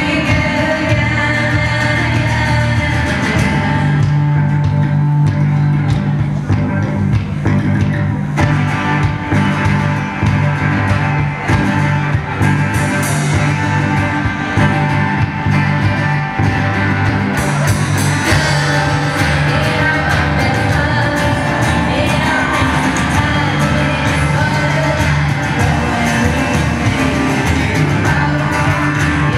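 A live rock band: a woman singing lead over drums, a steady bass line, guitars and cello.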